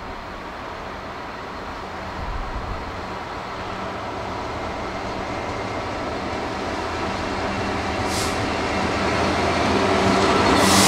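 Class 66 diesel locomotive's two-stroke V12 engine running as it approaches at the head of a container freight train, a steady drone growing steadily louder as it nears. Two short high hisses come near the end.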